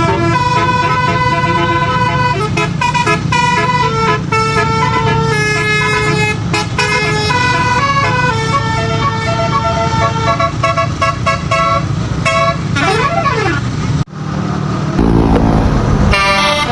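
A multi-note Basuri telolet bus horn playing a tune, note after note, over the steady rumble of the bus's engine; it cuts off suddenly about 14 seconds in, and a different sound starts near the end.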